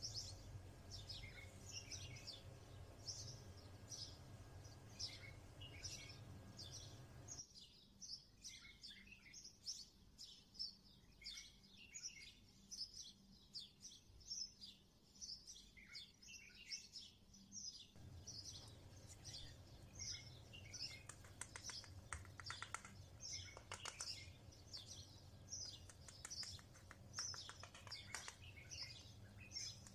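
Small birds chirping and twittering: many short, high calls in quick succession, with fast trills in the last several seconds. Under them is a faint low hum that cuts out for about ten seconds in the middle.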